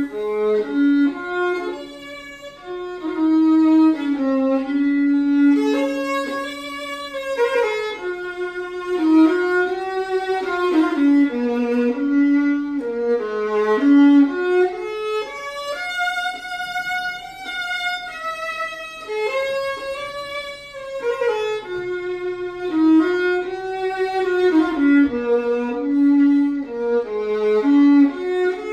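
Unaccompanied solo violin playing a melody of held notes and stepwise phrases, with one higher note held for a couple of seconds about midway.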